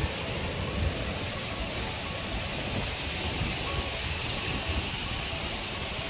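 Steady rush of the Kalambo Falls, a tall single-drop waterfall, with wind gusting on the microphone.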